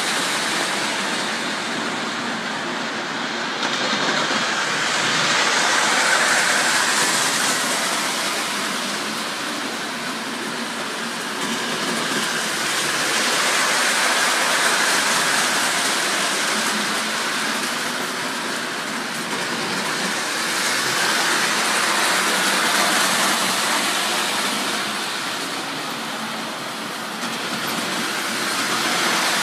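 Model trains running on metal track: a steady rolling rumble and hiss that swells and fades every 8 or 9 seconds as the trains come past and move away.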